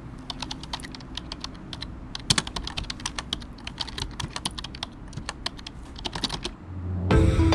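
Typing on a Tecware Phantom L low-profile mechanical keyboard: a rapid, irregular stream of key clicks and keystrokes. Music comes in near the end.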